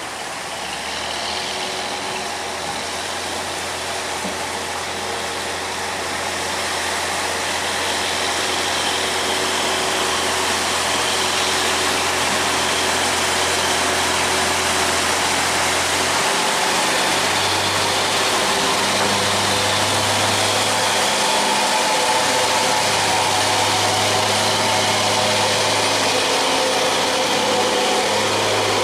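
Diesel engine of a loaded cargo barge running hard as it pushes through a sluice gate against a strong current, with water rushing and churning along the hull. It grows louder over the first several seconds as the barge comes closer, and the engine note shifts about halfway through.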